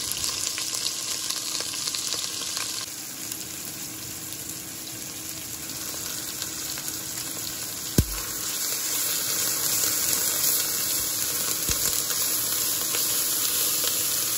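Sliced red onions and green chillies sizzling in hot oil in a stainless steel pot as they sauté and begin to soften. There is a single sharp click about halfway through, after which the sizzling is louder and a wooden spatula stirs through the onions.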